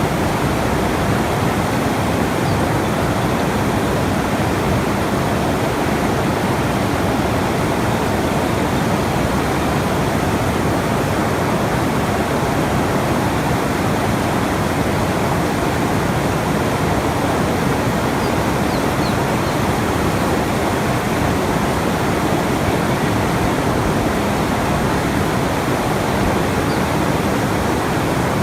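Steady, unbroken rushing noise, loud and even in level, with its weight in the low and middle range.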